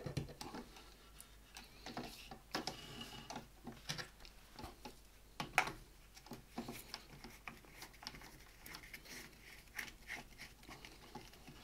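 Scattered light clicks and knocks of plastic and metal fittings being handled as a GoPro-style mount, diving-light housing and magnet are fitted to a telescopic pole, with a sharper knock about five and a half seconds in.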